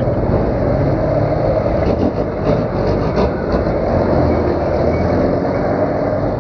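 Motor scooter running slowly in heavy traffic, its engine mixed with the engines of a jeepney and a truck alongside and a steady low rumble on the camera microphone. A short run of clicks and clatter about two to three seconds in.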